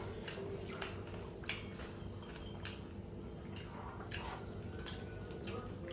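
Eating sounds: scattered soft clicks and taps of chewing and of food and dishes being handled, over a steady low hum.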